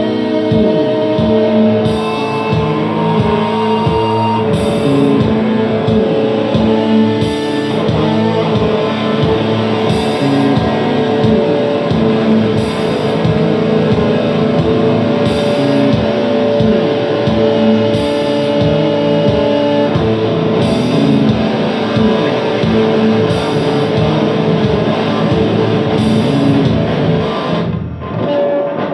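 Live electric guitar playing rock-style chords and lines over drums with a steady beat and a regular cymbal splash; the music stops abruptly near the end.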